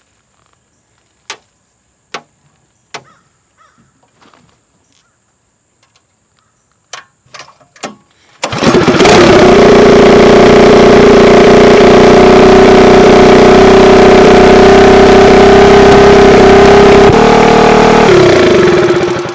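SPS longtail mud motor's gas engine started and run at a steady, loud high idle for about nine seconds to warm the oil for an oil change, then shut off and winding down. Several sharp clicks come before it starts.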